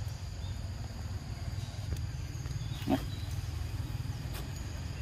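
Steady low rumble with a faint, steady high-pitched drone. About three seconds in comes one short animal call, the loudest sound here.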